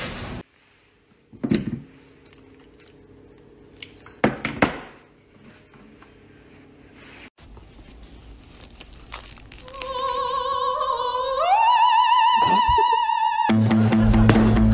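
A voice singing long, wavering notes that step up in pitch partway through, after a few soft thuds. Background music with a steady bass comes in near the end.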